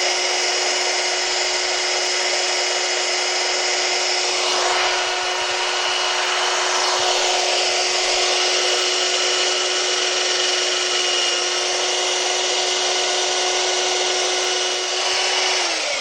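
Electric belt sander running steadily while a small wooden piece is sanded down to a traced line. Near the end it is switched off and its motor hum begins to wind down in pitch.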